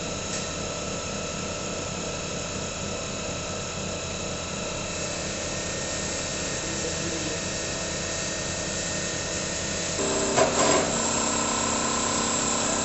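CNC lathe running, a steady machine whine with several held tones. About ten seconds in it grows louder, with a brief burst of noise and a new set of tones.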